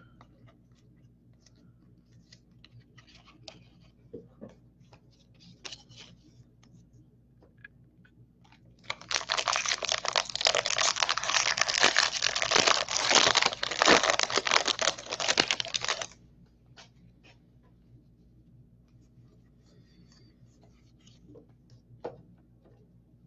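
Foil wrapper of a trading card pack torn open and crinkled: a loud crackling stretch of about seven seconds in the middle, with faint clicks of cards being handled before and after it.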